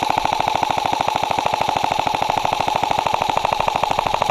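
Airsoft electric gun firing one long, unbroken full-auto burst: rapid, even clicking of well over ten shots a second over the steady whine of the gearbox.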